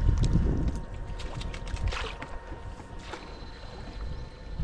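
Water splashing and sloshing around a small paddled boat, with scattered light knocks and a low rumble of wind on the microphone that is loudest in the first second.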